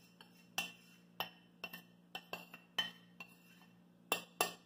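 A plate knocked and scraped against the rim of a plastic mixing bowl while powdery starch is emptied from it: a run of about ten light, irregular clinks and taps, the two loudest near the end.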